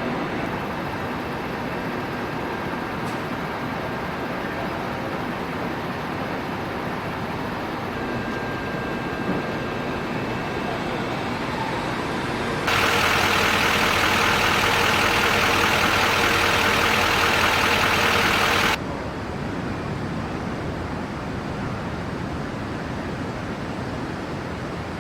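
Steady engine and traffic noise from idling vehicles. About halfway through, a louder, brighter rushing noise cuts in abruptly, runs steadily for about six seconds, then cuts off just as suddenly.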